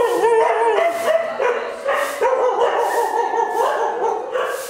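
A chorus of rescued stray dogs giving overlapping, wavering cries and whines, with short barks mixed in.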